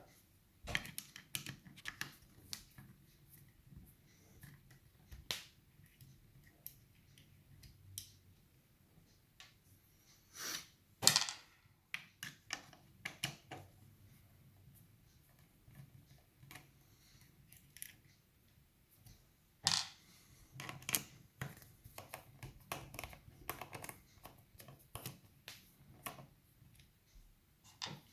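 Irregular small metallic clicks, taps and scrapes as an Asec five-lever mortice deadlock is opened up by hand to get at its levers, with a couple of louder clicks about ten seconds in and again near twenty seconds.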